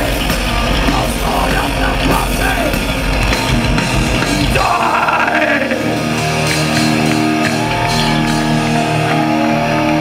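Thrash metal band playing live with distorted electric guitars, drums and shouted vocals. About halfway through, the drums and riffing stop at the song's end, leaving held amplifier feedback tones ringing.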